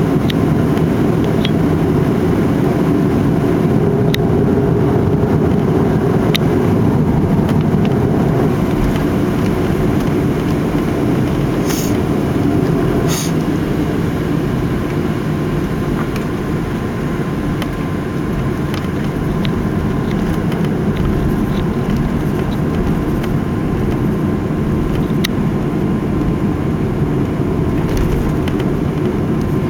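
Steady rumble of an airliner's jet engines and airframe heard inside the passenger cabin while taxiing after landing. A few faint clicks, and two short hissy bursts about 12 and 13 seconds in.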